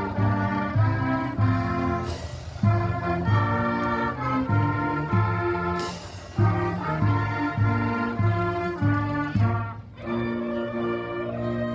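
Orchestral-style music with brass over a pulsing bass line, with two cymbal crashes about 2 and 6 seconds in.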